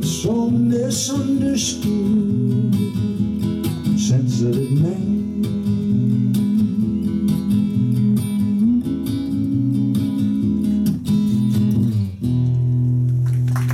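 Acoustic guitar strumming the closing bars of a song, settling about twelve seconds in on a final chord that is held and rings out.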